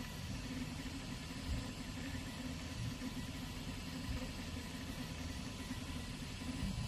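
YINGHE mini laser engraver running as it engraves text into wood: its motors drive the laser head in short back-and-forth moves, giving a steady, low, uneven mechanical hum with a few faint steady tones above it.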